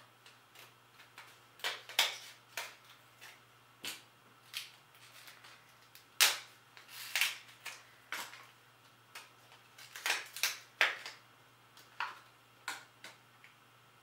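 Scissors snipping through a hard plastic blister pack, and the plastic cracking as it is pulled open: a run of sharp, irregular snaps and clicks.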